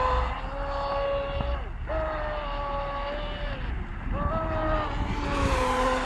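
Radio-controlled model V-hull speedboat's motor whining at high speed as it planes across the water. Its pitch drops briefly about two seconds in and again near four seconds, then picks up again.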